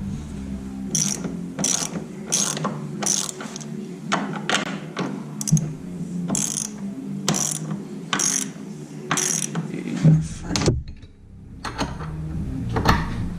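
Socket ratchet wrench being cranked in repeated strokes, each stroke a burst of rapid pawl clicks, about one stroke every two-thirds of a second, with a short pause about eleven seconds in. The mounting bolts are being tightened down onto spring washers.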